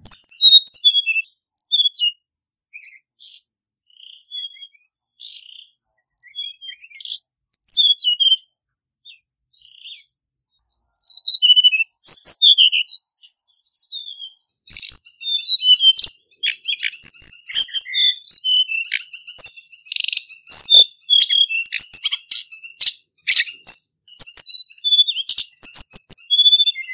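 Male hill blue flycatcher singing: dense phrases of short, high, quickly varied twittering notes. From about halfway through, a steady high trill runs beneath the song.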